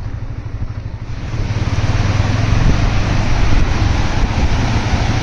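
Fast, shallow mountain river rushing through rapids over boulders, a steady roar of water that swells about a second in, with wind rumbling on the microphone.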